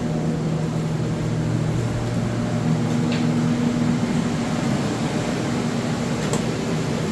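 Water-damage drying equipment (air movers) running with a steady hum and a few held low tones.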